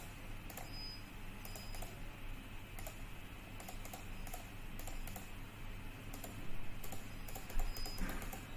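Irregular clicking of computer keyboard keys and mouse buttons, coming quicker about six to eight seconds in, over a faint steady hum.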